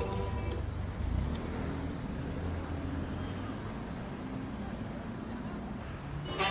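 Low, steady rumble of road traffic, with a few faint bird chirps about four to five seconds in.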